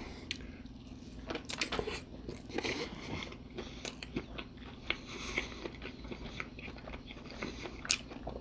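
A person biting into and chewing a chili cheese dog close to the microphone: wet mouth clicks and smacks coming irregularly, with a steady low hum underneath.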